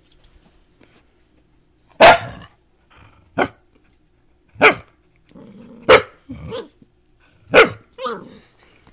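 Small puppy barking: about seven short, high barks, the four loudest roughly one and a half seconds apart, each followed by a softer one.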